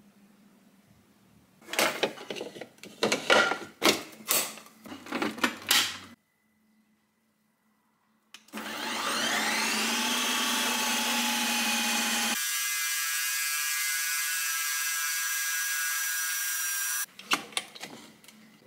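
Ninja Creami ice-cream maker's motor starting up with a rising whine, then running steadily at a high pitch as its blade works through the frozen pint. Before it comes a scattering of clicks and knocks, and after it stops, handling clatter as the bowl is taken off the machine.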